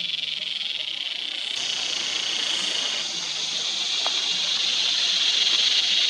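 Cicada calling: a continuous high, hissing buzz that grows louder over the last few seconds.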